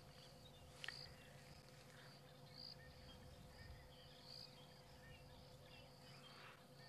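Quiet bush ambience: a steady high insect buzz that swells a few times, with faint chirps.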